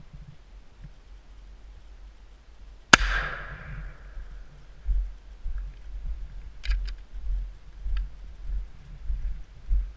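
A single shotgun shot about three seconds in: a sharp crack whose echo fades over about a second. Dull low thumps and a few faint clicks follow.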